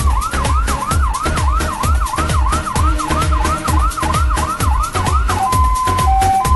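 Police-style siren sound effect over a dance-music beat with a steady kick drum: a fast yelp sweeping up and down about three times a second, changing about five seconds in to a two-tone hi-lo alternation.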